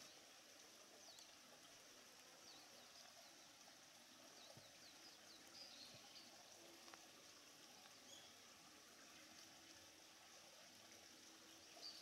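Near silence: faint outdoor ambience, a steady low hiss with a few brief, faint high chirps scattered through it.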